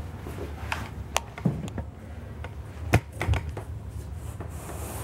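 A large beadboard wainscoting panel being picked up and handled, with a series of light knocks and taps and one sharper knock about three seconds in.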